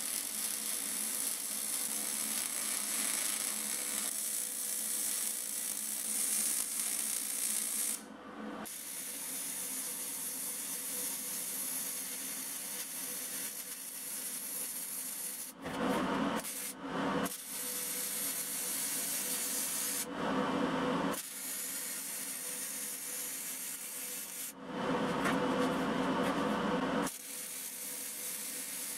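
MIG/MAG welding arc on sheet steel, a steady crackling hiss. The arc breaks off and restarts about four times, with a few seconds of a duller noise in each break.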